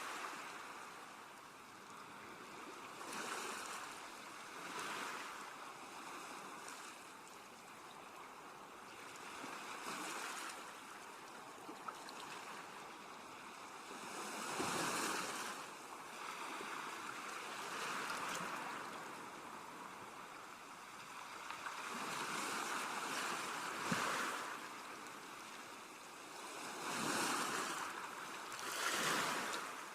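Sea waves washing in and breaking on a shore, a steady hiss of surf that swells with each wave every few seconds. The loudest waves come about halfway through and near the end.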